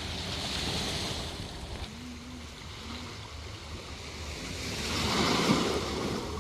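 Ocean surf washing onto the beach, with wind on the microphone; a wave swells and breaks, loudest about five seconds in.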